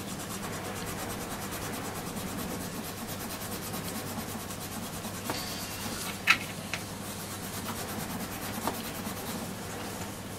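Brasso wadding rubbed over an aluminium trim strip to polish off tarnish, a steady scrubbing. A sharp click about six seconds in.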